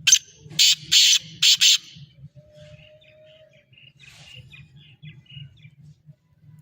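Black francolin calling: a series of five loud notes packed into the first two seconds. Faint chirps of other birds follow.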